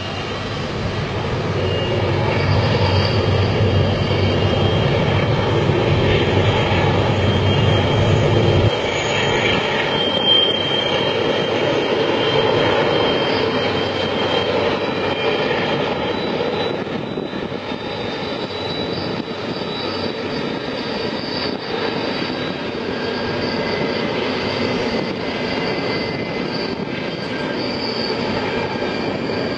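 Freight train rolling along the track: a steady rush of wheel-on-rail noise with thin high tones over it. The deep low rumble drops away abruptly about nine seconds in.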